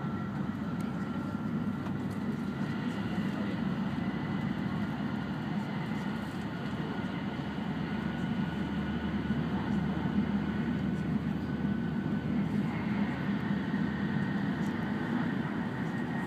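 Steady running noise heard inside the cabin of an E5-series Shinkansen at speed: a low rumble with a few faint, steady high whines over it.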